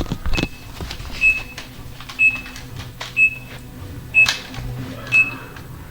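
Short high electronic beeps, one about every second, five in all, over a faint low hum, with a thump just after the start.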